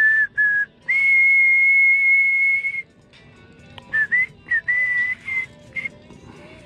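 A person whistling a tune, clear and loud: two short notes, one long held note, then a run of short notes with small slides in pitch, over faint background music.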